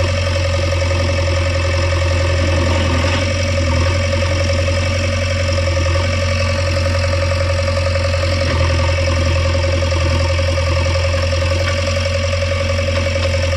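Diesel engine of a JCB 3DX backhoe loader running steadily, a constant low drone with a steady higher whine over it.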